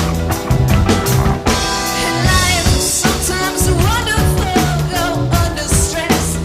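Rock band playing live: drum kit keeping a steady beat under bass and guitar, with a singing voice.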